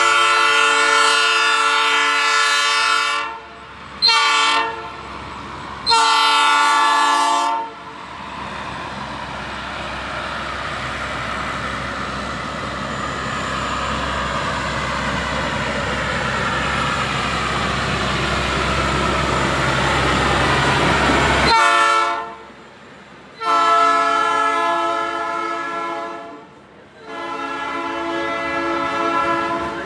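Locomotive air horn sounding a chord in a long blast, a short blast and another long blast, followed by the train rumbling past with wheel and rail noise for about thirteen seconds. This cuts off abruptly, and the horn then sounds three more blasts, the last two long.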